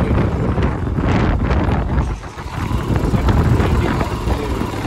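Wind buffeting the microphone of a motorcycle riding at highway speed, with the bike running under the rush. The noise eases briefly about two seconds in.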